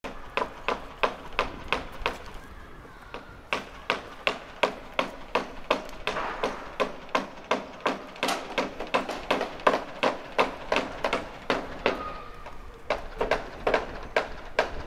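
Sharp taps or knocks in an even rhythm of about three a second, briefly weaker a little after two seconds in.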